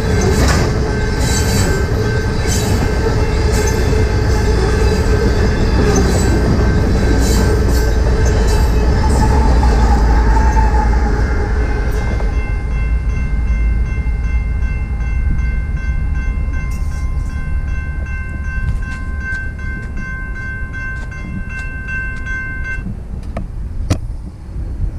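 A loaded tank-car freight train rolling past at a grade crossing: low rumble and regular wheel clicks over the rail joints, loudest just before the tail clears about twelve seconds in. The crossing's warning bell then rings on alone and stops near the end.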